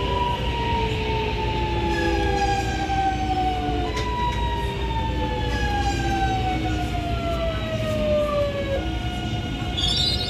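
Alstom Metropolis 8900-series train's IGBT-VVVF traction inverter whining over the running rumble. Several pitched tones slide steadily down in pitch as the train slows, jump back up about four seconds in, then fall again before changing character near the end.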